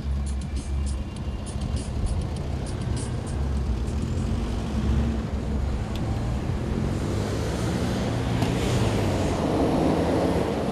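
Road traffic: vehicle engines running with a low rumble, and a van driving past close by, getting louder near the end. A rapid, irregular high ticking sounds for about the first three seconds.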